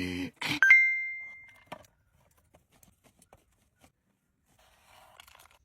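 A bright ding, a bell-like chime that rings and fades away over about a second. It comes just after a short buzzing tone cuts off at the start, and is followed only by faint, scattered small clicks.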